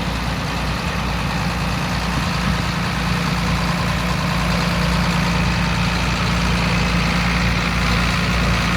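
John Deere 9510 combine harvester running steadily, an even machine drone with a constant hum.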